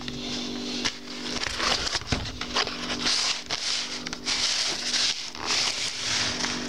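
Corrugated cardboard book wrapper being handled and pulled open by hand: irregular scraping, rustling and crinkling with small clicks and taps.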